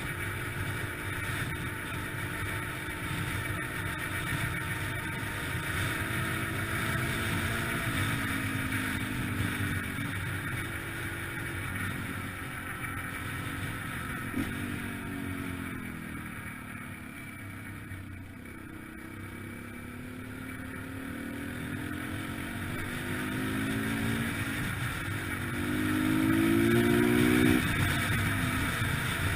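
2003 Yamaha TT-R125LE dirt bike's single-cylinder four-stroke engine running under way. Its pitch climbs several times and drops back, it eases off and goes quieter around the middle, then picks up again and is loudest near the end.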